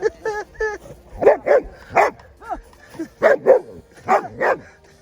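Dog barking repeatedly: a string of short, loud barks, several of them in quick pairs, with a few lighter yips at the start.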